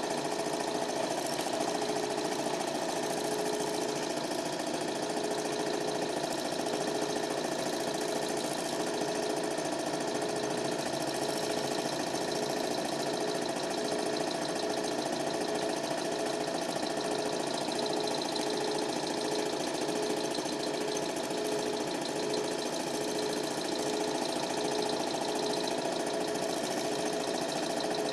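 Super 8 film projector running: a steady mechanical whirr with an even, repeating rhythm from the film transport.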